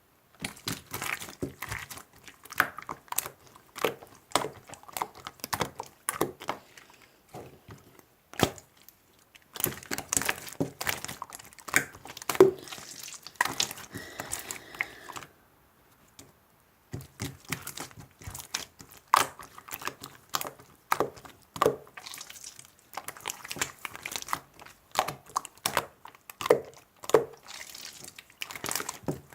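Slime being squished, poked and stretched by hand, giving runs of small sticky pops and clicks with a crinkly, tearing texture. The handling comes in bursts, with a short pause about halfway through.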